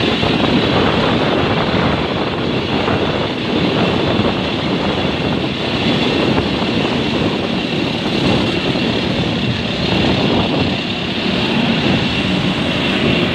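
Steady rush of jet aircraft noise with a high whine running through it.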